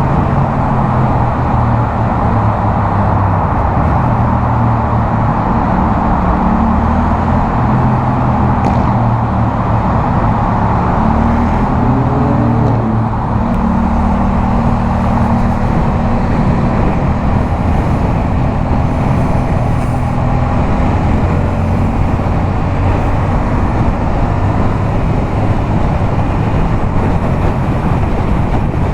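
Yamaha MT-07's 689 cc parallel-twin engine through a LeoVince aftermarket exhaust, running steadily at highway speed, with wind and road noise; the engine note shifts briefly about halfway through.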